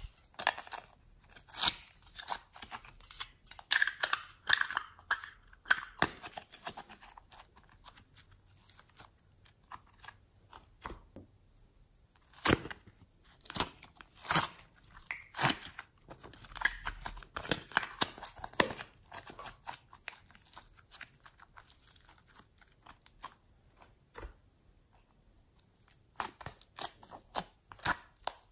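Thin clear plastic moulds clicking and crackling in the hands as modelling clay is pressed into them and popped out. The clicks come irregularly, with a quieter stretch about two-thirds of the way through.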